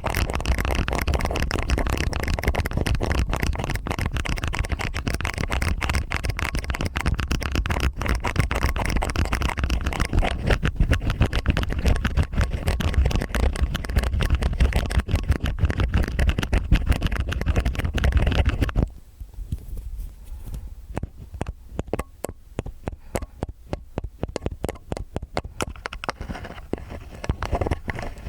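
Stainless steel ear picks scraping and scratching in both ears at once, a dense crackly scraping over a low rumble. About two-thirds of the way through it drops abruptly to quieter, sparser scratches and clicks.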